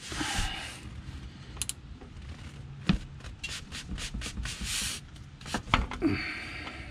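A wrench on a 17 mm socket and extension straining at a tight oil drain plug: rubbing and scraping with scattered clicks, and two sharp knocks, about three seconds in and again near six seconds.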